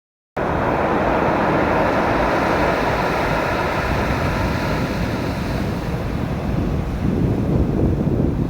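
Pacific surf washing on the shore, a steady rushing noise, with wind rumbling on the microphone that grows stronger near the end.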